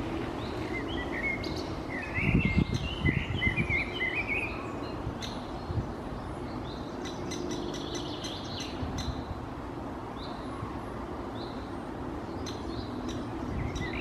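Great spotted woodpecker nestling calling from the nest hole: a rapid run of high chirping calls for a few seconds, with low thumps under them. Then scattered short calls and sharp clicks over steady background noise.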